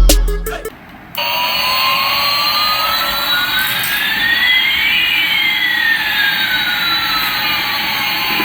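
Jet-engine sound effect: a steady whooshing hiss with one whistle gliding slowly up in pitch and another gliding down, the two crossing midway. It starts abruptly about a second in, just after music ends.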